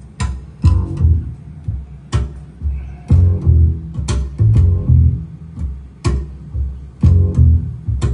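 Recorded music played over large hi-fi loudspeakers: a slow passage of deep bass notes with a sharp strike about once a second.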